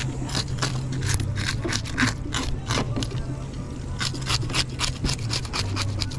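Mangrove snapper being scaled: quick, rasping scraping strokes, about four a second, as the scales are scraped off the fish.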